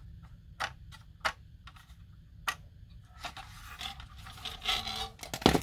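Handling noise from a plastic 1:32 RC toy tank being turned over in the hands: a few sharp clicks and some rubbing of plastic, with a louder knock near the end.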